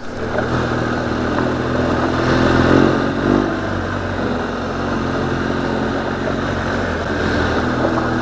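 BMW R1200GS boxer-twin motorcycle engine running while riding along a gravel track. The revs rise about two seconds in and fall back a second later, over a steady rushing noise.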